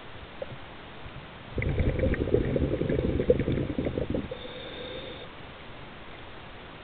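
Scuba diver's regulator underwater: a burst of exhaled bubbles gurgling and crackling for about three seconds, then a short, faint hissing inhale.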